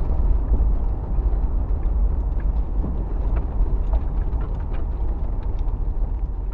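Off-road vehicle driving: a steady low rumble of engine and road noise, with scattered light ticks and rattles.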